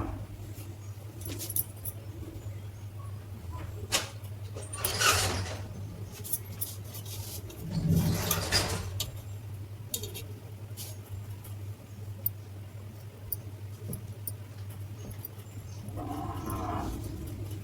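Scattered light clicks and clinks of small metal parts and tools being handled while a table fan is taken apart, with a couple of brief scraping noises, over a steady low hum.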